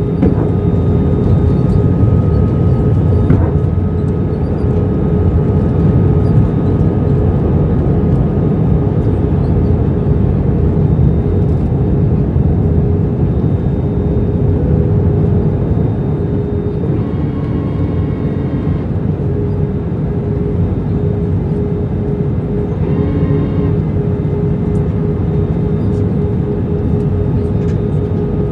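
Steady roar of an Airbus A321 airliner in flight, engine and airflow noise, with a steady hum running under it.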